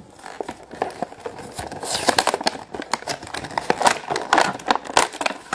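Hands handling a boxed plastic fashion doll and its packaging: a busy run of crinkling, rustling and small plastic clicks, heaviest through the middle.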